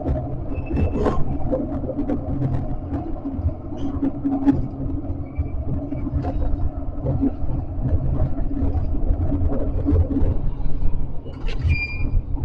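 Tram running along the track, heard from on board: a steady low rumble with scattered clicks from the wheels on the rails, and a few brief high squeaks, the last one near the end.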